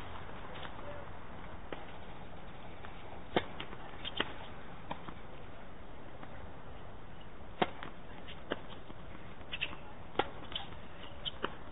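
Tennis balls being struck by racquets and bouncing on a hard court during a rally: sharp, single pops a second or more apart, the loudest about three and a half and seven and a half seconds in.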